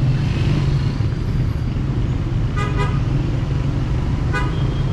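Steady rumble of city street traffic, with a quick double toot from a vehicle horn about two and a half seconds in and one more short toot near the end.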